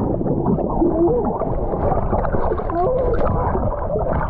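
Water heard through a submerged microphone: a dense, muffled gurgling, with a few short wavering tones gliding up and down.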